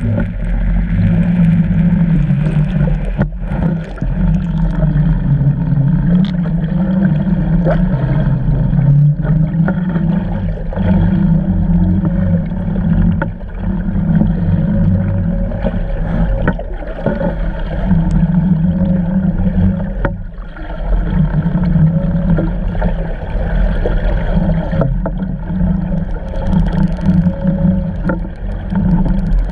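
Muffled underwater drone of a research vessel's engine and propeller, picked up through a pole-mounted GoPro's housing, with water rushing past the housing. The hum stays steady throughout, dipping briefly now and then.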